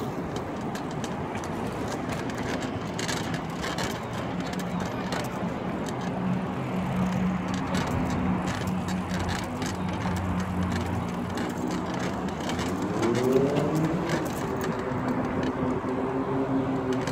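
Steady road traffic noise, with a vehicle engine rising in pitch about thirteen seconds in and then holding a steady hum.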